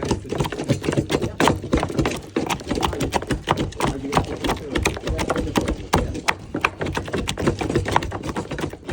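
Rapid, irregular clicking and knocking, several strikes a second, with a low murmur of voices beneath.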